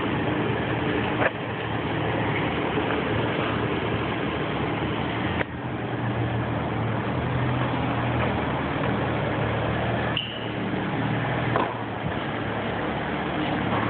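Steady loud machine noise inside a car wash tunnel, with a car's engine running low underneath as it drives through, and a few brief knocks.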